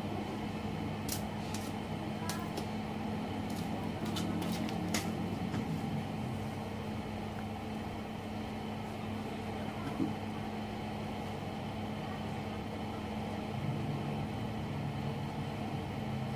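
Smarter TIG-180S DC inverter welder switched on and running with a steady hum, with a few sharp clicks in the first five seconds and one more about ten seconds in.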